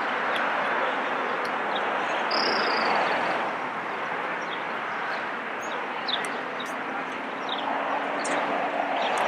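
Steady rushing outdoor background noise with short, scattered bird chirps.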